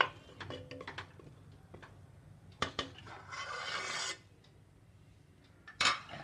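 Metal spoon clinking and scraping against a steel pressure cooker. About three seconds in comes a short rasping hiss, and near the end a single sharp knock.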